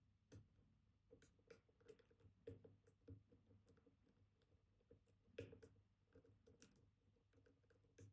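Faint, irregular clicks and taps of a dimple pick working the spring-loaded pins of a Kaba Titan Combi high-security dimple lock under tension, the loudest about five and a half seconds in.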